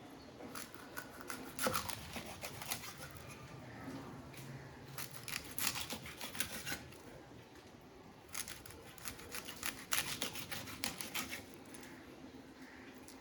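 A blade cutting and scraping a big hilsa fish: rapid sharp scratchy clicks in three bursts, with short pauses between.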